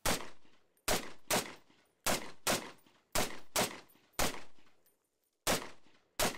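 FN FAL battle rifle (7.62×51 mm) fired semi-automatically, about ten shots, several in quick pairs less than half a second apart, each shot with a short echo that dies away.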